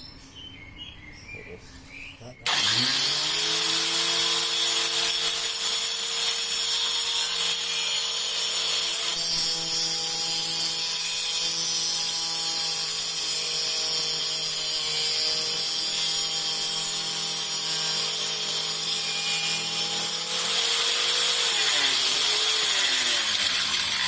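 Electric motor of a homemade table saw switched on a couple of seconds in, reaching speed almost at once and running steadily, with the blade cutting wood through the middle stretch. Near the end it is switched off and winds down with falling pitch.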